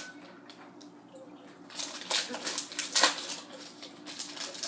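Hockey trading cards being handled, the pack's wrapper rustling and the cards scraping and sliding against each other in a cluster of short scrapes and clicks, loudest about three seconds in.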